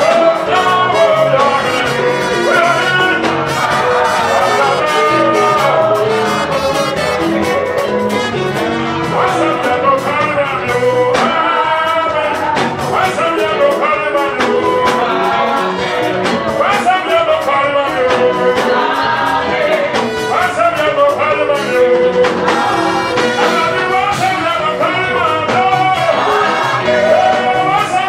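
A man singing Pentecostal praise songs into a microphone over loud accompanying music with drum hits, amplified through a PA system.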